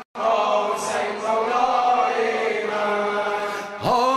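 Male voices chanting a Shia mourning lament (latmiya) in long, drawn-out held notes. The sound cuts out for an instant at the very start, and a new phrase begins with a rising pitch near the end.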